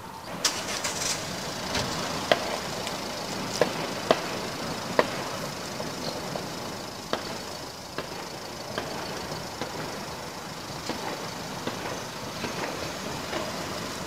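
Celebratory gunfire across a city: many single shots going off irregularly, some sharp and near, others faint and distant, over a steady background noise.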